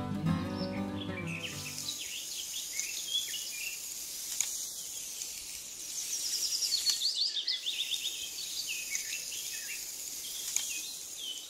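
Music plays for about the first two seconds and then stops. After that come birds chirping, many short calls, over a steady high buzz of insects.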